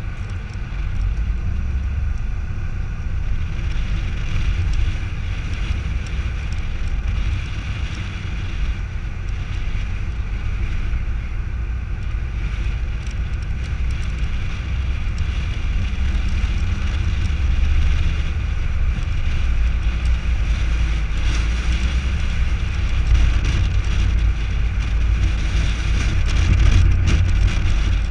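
A car driving along a road, heard from a camera mounted on the outside of its body. Wind on the microphone and tyre noise make a steady, deep rumble, swelling a little now and then.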